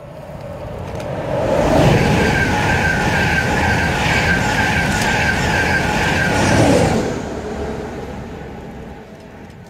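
Intercity 225 (Class 91 electric locomotive with Mark 4 coaches) passing through the station at speed: the noise builds, a loud rush of wheels and air with a repeating clatter runs for about five seconds, then fades away.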